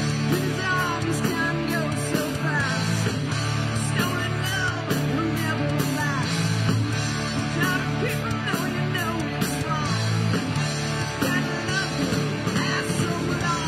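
A live rock band plays with guitar to the fore, repeated short phrases of bent notes over a steady bass. No words are sung.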